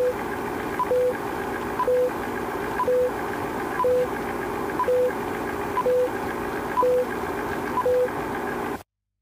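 Film-leader countdown sound effect: a film projector running steadily, with a short beep every second, nine in all, each just after a faint tick. It cuts off suddenly near the end.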